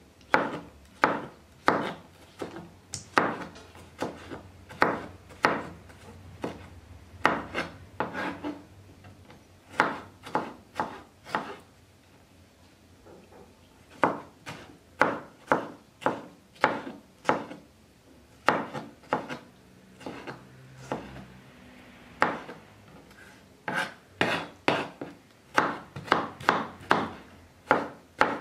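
Kitchen knife chopping a tomato on a cutting board: sharp knocks of the blade on the board, about one or two a second. The strokes thin out for a few seconds near the middle and come quicker near the end.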